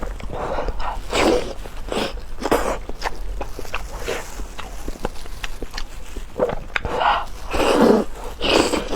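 Close-up sounds of a person chewing food, with a swell of wet chewing about once a second and many small sharp mouth clicks in between.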